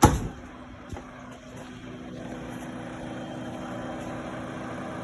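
A sharp knock, then the rebuilt 1930s Westinghouse refrigerator compressor running with a steady hum that slowly grows louder.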